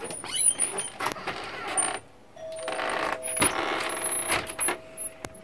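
A metal storm door's handle and latch clicking and rattling as it is pulled open, with several sharp knocks. A steady two-note hum starts a little past halfway and stops near the end.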